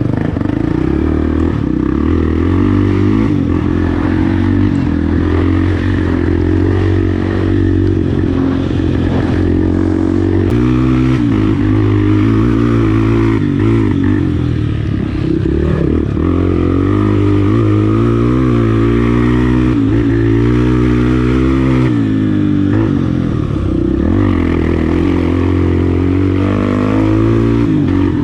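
Single-cylinder four-stroke engine of a Honda Tornado trail motorcycle running under load while being ridden, its revs rising and falling continually as the throttle is worked, with some clatter over the rough ground.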